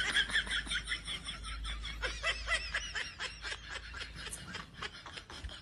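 High-pitched, rapid snickering laughter, a quick run of short giggles that fades toward the end.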